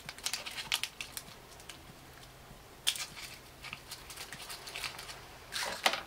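Scissors snipping into a paper muffin cup, with the paper crinkling: a quick run of crisp snips in the first second, then short clusters of snips, the loudest near the end.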